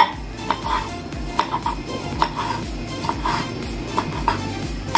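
Kitchen knife slicing a green bell pepper on a cutting board: short, sharp taps of the blade on the board, a few a second at an uneven pace, over background music.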